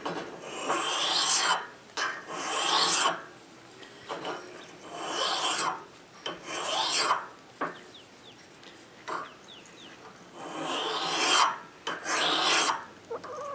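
Steel ice auger blade being rubbed by hand over a fine sharpening stone: about seven gritty rasping strokes, each a second or so long, with short pauses between. The strokes hone the blade's dull, rolled-over cutting edge.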